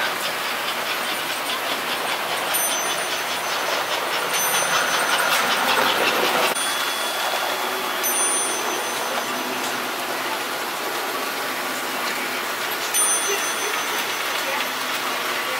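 Toy trains running on the layout's track: a steady whir with rapid, even clicking of wheels over the rails. It swells a little, then drops back about six seconds in.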